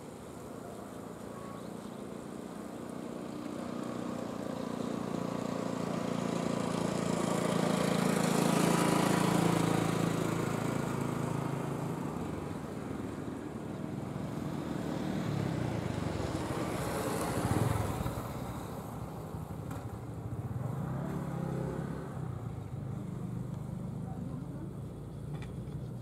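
Road vehicles passing by one after another, each swelling and then fading away. The loudest pass comes about nine seconds in and another about seventeen seconds in.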